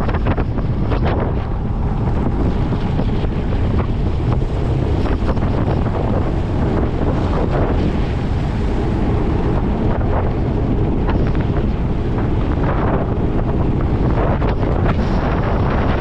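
Strong wind buffeting the microphone, a steady loud low rumble with no clear engine note.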